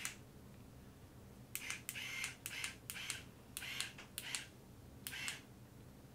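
Beachwaver rotating curling iron's motorized barrel turning in short stops and starts as its button is pressed, winding a section of hair onto the barrel: about a dozen brief whirring clicks, mostly in pairs, starting about a second and a half in.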